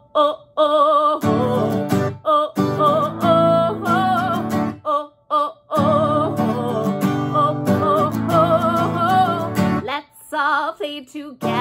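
A woman singing with a wavering, vibrato-like voice while strumming an acoustic guitar, with two brief pauses, about halfway through and near the end.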